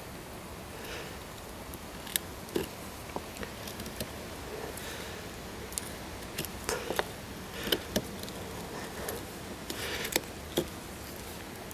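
Fixed-blade bushcraft knife carving a notch into a wooden branch to shape a tent peg: short, irregular clicks and scrapes as the blade bites into the wood, a few sharper snaps between about two and eleven seconds in.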